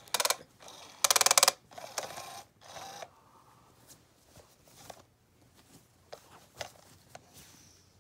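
SmartyKat Hot Pursuit cat toy's motorised wand clattering in a rapid, loud burst of clicks for about half a second, then light rustling and scattered ticks as its nylon cover is pawed and handled.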